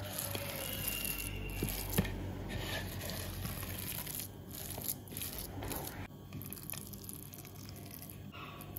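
Silicone spatula mixing and pressing a moist mashed-tofu and shrimp dough in a plastic bowl: soft squishing and scraping, with one sharp knock about two seconds in, going quieter after about six seconds.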